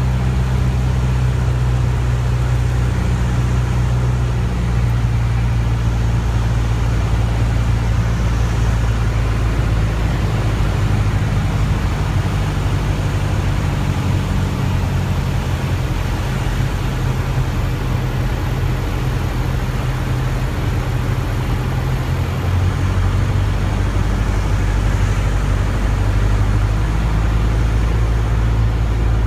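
Light aircraft's piston engine and propeller droning steadily inside the cockpit on final approach to landing, the pitch stepping slightly a few times as power changes.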